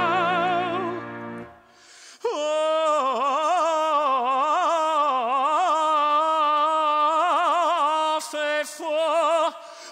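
Male cantor singing a long, ornate chant line with wide vibrato. It begins over a held accompaniment chord that fades out about a second and a half in; after a short pause the voice goes on alone, unaccompanied, through the rest.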